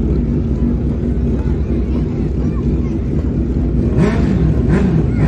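A motor vehicle running steadily under way, a dense low engine-and-road rumble with a steady drone, and a brief voice about four seconds in.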